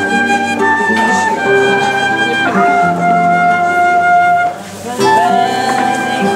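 Transverse flute playing a melody of long held notes over a classical guitar accompaniment, with a short break in the playing about four and a half seconds in.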